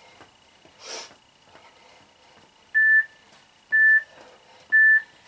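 Workout interval timer beeping three times, one short high beep a second, counting down the end of a rest break.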